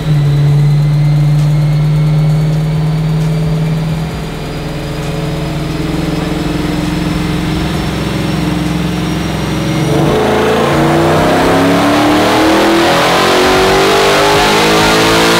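Chevrolet Silverado pickup's engine on a chassis dyno: it runs steadily in gear with a faint, slowly rising whine. About ten seconds in it goes to full throttle and the revs climb steadily through a dyno pull.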